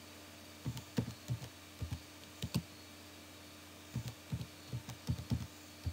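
Computer keyboard keys being typed, a run of irregular keystrokes with a pause of about a second in the middle.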